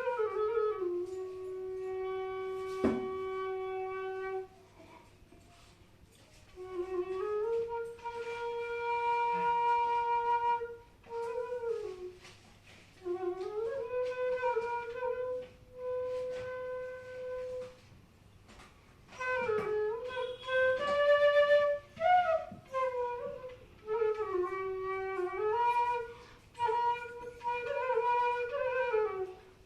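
Bansuri (Indian bamboo flute) playing a slow solo melody: long held notes joined by sliding bends in pitch, in phrases separated by short pauses.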